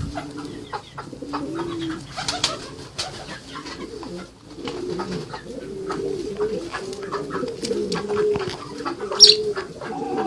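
Low, repeated cooing calls from birds, each a short rise and fall in pitch, with scattered light clicks and one sharp high-pitched call about nine seconds in.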